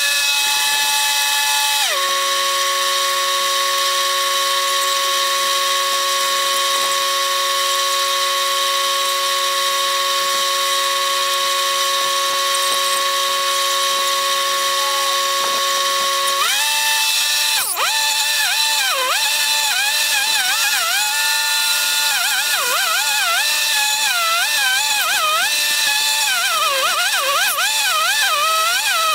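Chainsaw engine in sped-up audio. It holds one steady pitch for about fifteen seconds, then revs up and down rapidly in a warbling pattern for the rest of the time.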